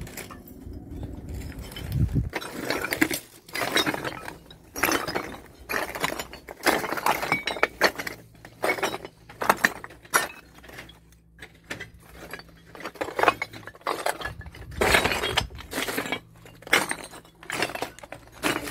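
Footsteps crunching and clinking over a floor of broken clay roof tiles, about one step a second from about two seconds in, with a short pause about halfway through.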